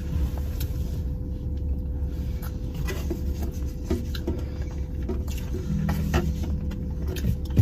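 Steady low rumble inside a car cabin, with scattered small clicks and crinkles of a takeout food container being handled while eating.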